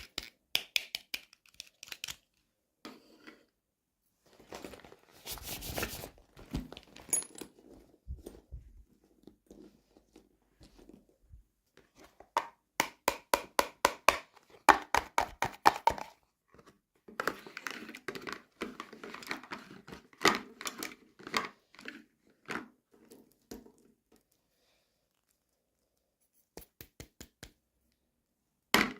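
Toy packaging being handled and opened at close range: runs of rapid clicks and taps with bursts of crinkling and tearing, stopping for a couple of seconds before a few last clicks near the end.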